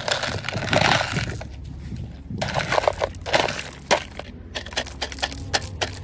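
Red lava rocks poured from a plastic bucket, clattering and rattling as they tumble into a hollow tree stump, in three pours with short pauses between.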